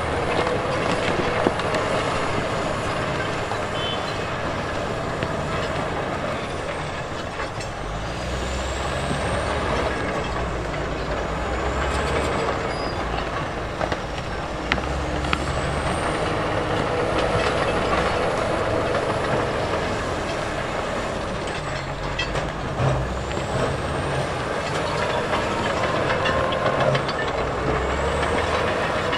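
Heavy diesel earth-moving machinery working: engine noise that swells and eases in waves as it takes load, with a few sharp clanks.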